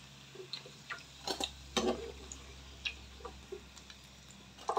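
Metal spatula scooping fried saba bananas out of oil and knocking lightly against the frying pan and a stainless steel bowl: a few scattered light clinks and taps.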